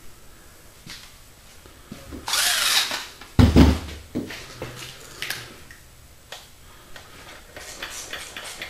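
A power tool runs in two short bursts, about two seconds and about three and a half seconds in, the second one louder and heavier. Light metal clicks follow as the connecting rod hardware is handled.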